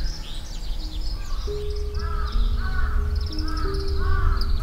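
Background music with long held notes, over birds calling outdoors. High chirps run throughout, and a repeated arching call comes about every half second from about a second and a half in.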